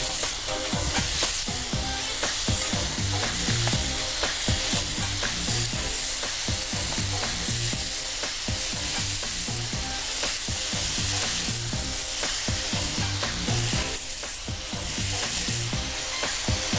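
Calamari pieces sizzling on a hot ribbed grill plate, a steady frying hiss, with background music underneath.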